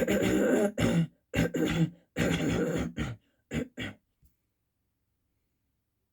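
A man's throat clearing and coughing, performed as a series of about seven rough bursts over some four seconds, the last few short and clipped.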